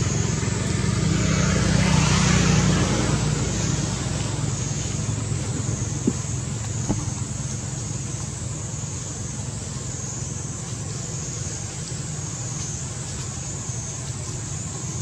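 A motor vehicle passing, its low engine rumble loudest in the first few seconds and then fading to a steady distant hum, with two light clicks in the middle.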